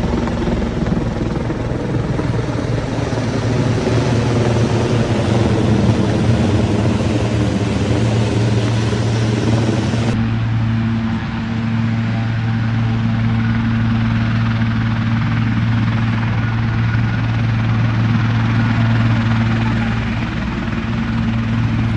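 Helicopter flying low overhead: a loud, steady engine-and-rotor drone with a low hum. About ten seconds in, the sound turns duller as the higher part of the noise drops away.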